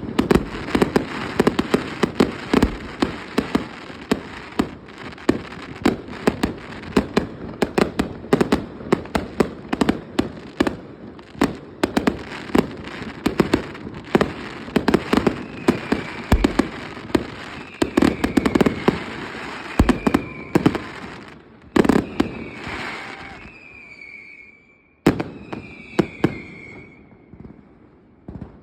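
Fireworks display: rapid, dense volleys of bangs for about twenty seconds, thinning to a few scattered single bangs near the end. A few short falling whistles are heard in the second half.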